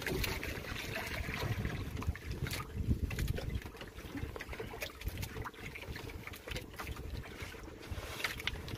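Water sloshing against a small outrigger fishing boat, over a steady low rumble, with scattered light clicks and knocks as the hand line and catch are handled at the gunwale.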